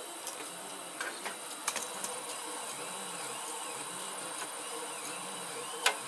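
3D printer running a print: its stepper motors whine in repeating rising-and-falling sweeps as the print head moves. A few sharp knocks come through, the loudest near the end, from the printer's servo arm knocking.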